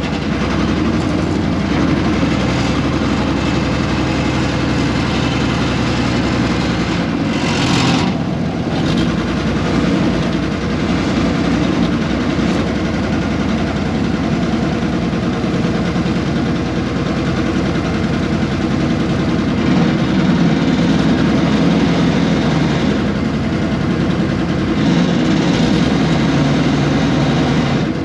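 Air-cooled Deutz diesel engine of a 1970s excavator running steadily while it works, its note shifting about seven seconds in.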